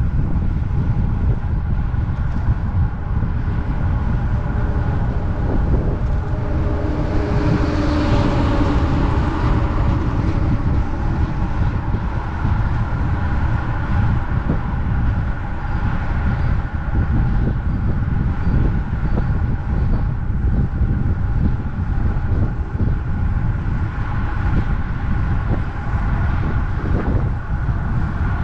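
Steady wind buffeting on a handlebar-mounted action camera's microphone on a road bike riding at about 43–45 km/h, mixed with tyre and road noise. A louder swell of noise rises and fades about eight seconds in.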